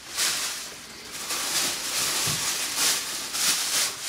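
Plastic garbage-bag wrapping rustling and crinkling in repeated surges as an item is pulled out and unwrapped.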